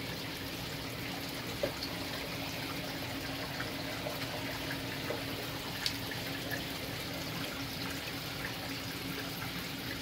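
Saltwater reef aquarium's circulating water trickling steadily, with a steady low pump hum underneath and a few faint clicks.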